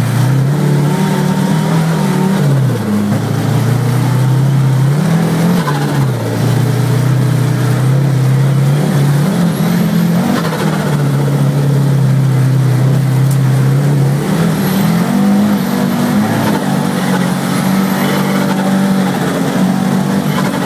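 Rally car's engine, heard from inside the cabin, running hard at speed, its note climbing and falling several times as the driver works the throttle.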